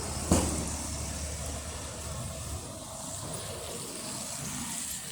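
Wind rumbling on the microphone, with a sharp knock just after the start. The rumble drops away about halfway through, leaving steady outdoor traffic-like noise.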